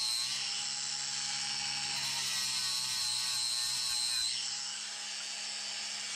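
Electric grinder with an abrasive disc grinding a weld spot on a car body panel clean, the motor's whine wavering under load. A little over four seconds in the disc comes off the metal and the motor spins on freely, slightly quieter.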